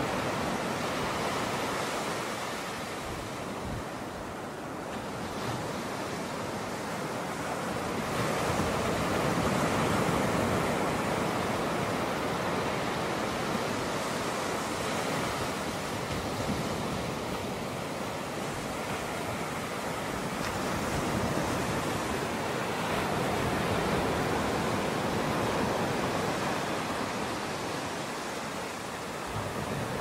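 Pacific surf washing in over a rocky shore: a steady rush of breaking water that swells and eases every several seconds.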